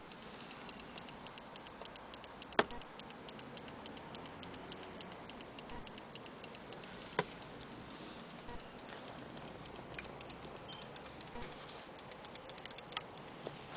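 Antique French mantel clock movement ticking, with rapid even ticks several a second. Three sharper knocks stand out, about two and a half seconds in, about seven seconds in and near the end.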